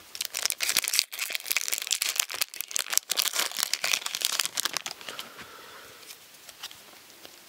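Foil wrapper of a 2014/15 Upper Deck MVP hockey card pack crinkling and tearing as it is ripped open by hand. A dense crackle runs for about five seconds, then thins out and goes quieter.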